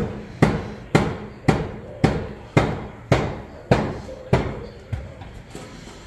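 Repeated hammer blows, about ten strikes at a little under two a second, slowing slightly and stopping about five seconds in.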